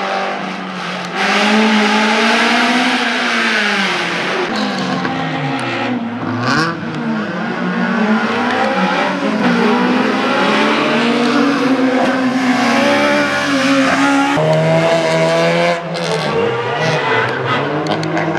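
A race car's engine revving hard and easing off again and again as it is driven through a slalom course, its pitch climbing and falling many times over.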